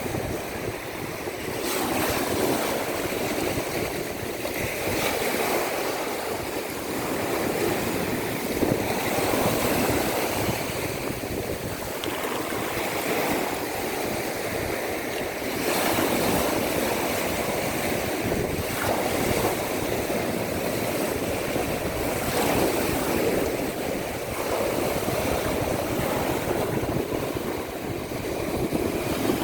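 Baltic Sea surf washing onto the shore, the waves swelling and breaking every few seconds.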